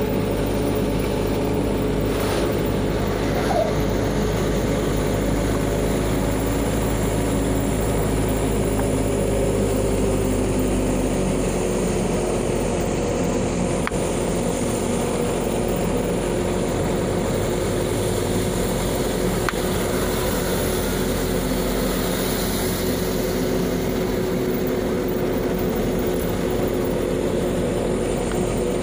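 A vehicle engine running steadily at cruising speed, with wind and tyre noise; the engine note shifts about eleven seconds in.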